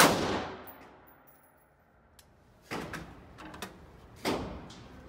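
A single AR-style rifle shot at the very start, ringing out through the indoor range for about a second. A couple of seconds later come a few quieter knocks and clicks.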